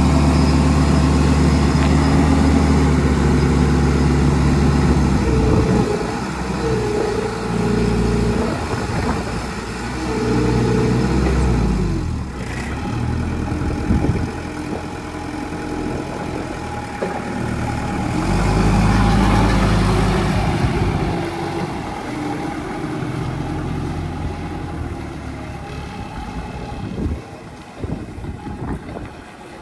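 Hangcha CPCD35HB diesel forklift engine running steadily, then rising and falling in pitch as the truck is worked, with a louder stretch about two-thirds of the way through. It fades toward the end as the forklift moves away.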